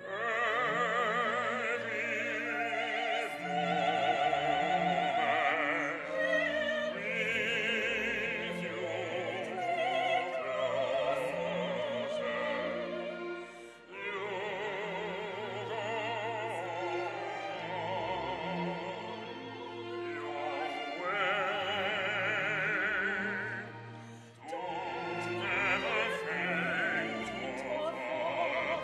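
Operatic singing with strong vibrato over instrumental accompaniment, sung in long phrases with two short breaks between them.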